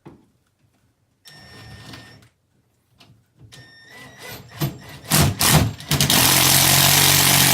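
Power drill driving a screw up through the air handler's panel into the wood behind the sheetrock. It starts with a few short squeezes of the trigger from about a second and a half in, then runs steadily at full speed over the last second and a half.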